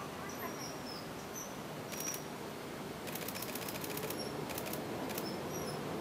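Common kingfisher fledglings making short, high, thin calls, with bursts of rapid chittering about two seconds in and again from three to five seconds: begging as the male parent comes in to feed them. A steady low background hum runs underneath.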